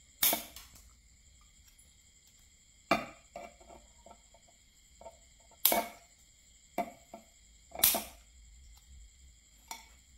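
Steel pliers clicking and tapping as they work a short piece of copper wire on a concrete slab: about seven sharp, irregular clicks, the loudest near the start, in the middle and about three-quarters through.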